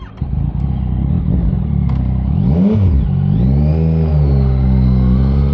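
Yamaha MT-09 inline three-cylinder engine with an aftermarket exhaust. It runs low, gives one quick throttle blip about two and a half seconds in, then pulls away with its pitch rising steadily as it accelerates.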